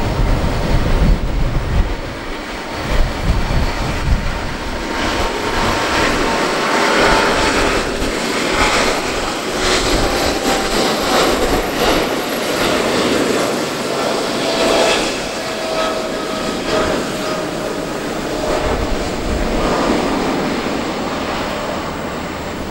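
Japan Airlines Boeing 777-300ER's twin GE90-115B turbofans at takeoff thrust: a loud, steady roar as the jet accelerates down the runway, lifts off and climbs away, with an engine whine that slowly falls in pitch as it passes.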